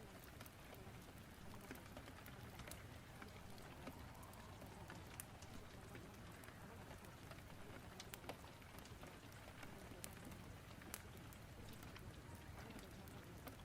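Faint rain storm and fireplace ambience: a steady hiss of rain with scattered sharp crackles and pops from the fire.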